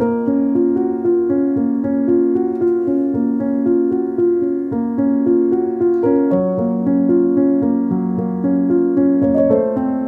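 Background piano music, a steady flow of sustained notes.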